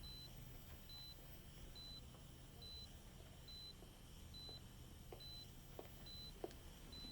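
Faint, steady beeping of a hospital patient monitor: one short high beep a little more than once a second, with a few faint ticks later on.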